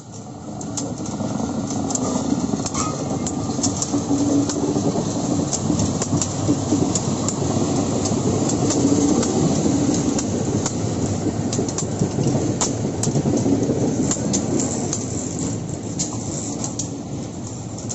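A train rolling along the rails, its wheels clicking and clacking over the track. It builds up over the first couple of seconds and eases off a little near the end.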